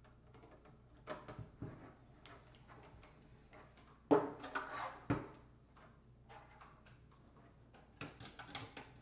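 Handling and screwdriver sounds as screws are driven through a metal dash-kit bracket into a car stereo's chassis: scattered clicks and light scrapes, with a sharp knock about four seconds in and another about a second later as the assembly is handled on a wooden table.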